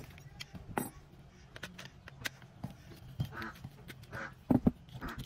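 Light clicks and scrapes of a screwdriver and fingers working the brass contact strips of an opened plastic power strip. Several short animal calls sound in the background, and two sharp loud sounds come about four and a half seconds in.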